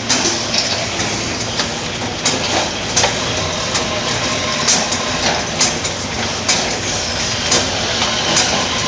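Steel bottle filling machine running: a steady mechanical din with sharp clicks and clacks at an uneven beat, about one or two a second.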